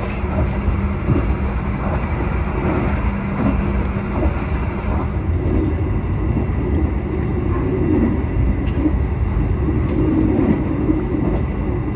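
Argo Semeru express train heard from aboard its stainless-steel coach, running at speed: a steady rumble of wheels on rail. A low hum runs under it and stops about four seconds in.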